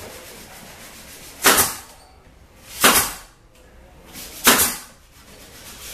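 Pneumatic pin nailer firing three times, about a second and a half apart, driving pins into MDF; each shot is a sharp crack with a short hiss of air.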